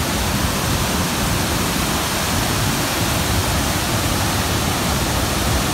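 Waterfall close at hand: a steady, dense rush of falling water with no change in level.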